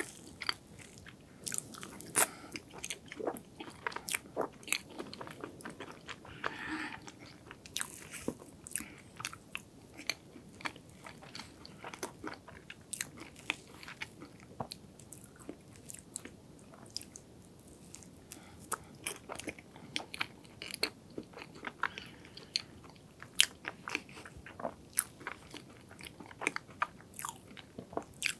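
Close-miked chewing of hazelnut chocolate cake, with many small, sharp crackles from its crunchy chopped-hazelnut chocolate coating.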